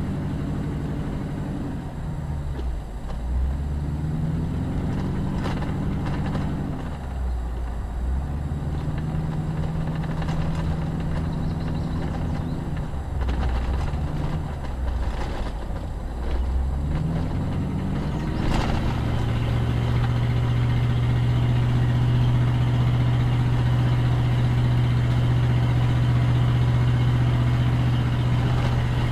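Car engine and road noise heard from inside the cabin. The engine pitch rises and falls several times as the car speeds up and eases off, then holds a steady drone from about two-thirds of the way through. A few light knocks come from the car.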